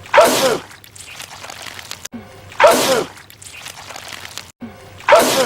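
A man sneezing loudly, the same sneeze repeated three times about two and a half seconds apart, each one cut in abruptly after a brief dropout, as a looped clip.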